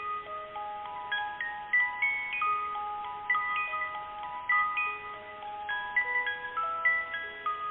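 A melody of clean, bell-like chime notes, each ringing on and overlapping the next, with a new note about every half second.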